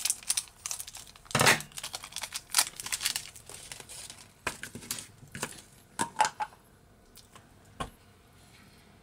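Scissors snipping open a small clear plastic bag, and the thin plastic crinkling as a small rubber toy figurine is pulled out: a run of crackles and snips for the first six seconds or so, then mostly quiet with one short knock near the end.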